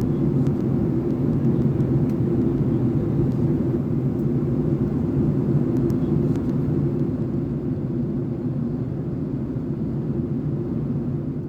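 Steady cabin drone of a Boeing 757-200 in flight, engine and airflow noise heaviest in the low range, easing off slightly toward the end.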